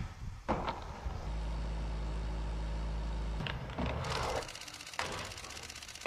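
Skateboard on a plywood ramp structure: a clack about half a second in, then a steady low engine hum for about two seconds. Near the end comes a hiss of rolling wheels with fine rapid ticks, and a sharp hit at the very end.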